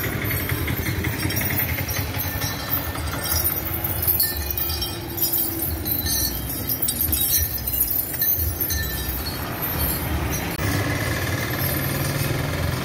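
Street traffic, with vehicle engines passing. Near the end a steady engine note comes in, fitting a passing motorcycle.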